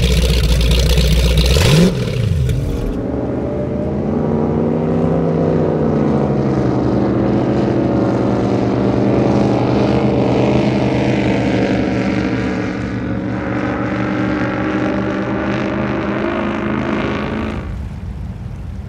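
High-performance powerboat engines: for about the first two seconds a loud rumbling idle with water churning. After that, a red Skater racing catamaran's engines run at speed, a steady multi-tone drone whose pitch sags and rises slightly as it passes. Near the end it gives way to wind on the microphone and water.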